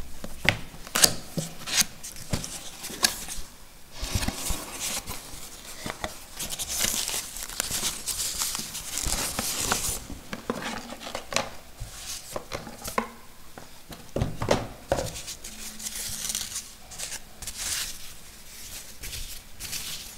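A cardboard box being opened and unpacked by hand: packaging crinkles and rustles, with many sharp clicks and knocks of handling, the rustling thickest a few seconds in.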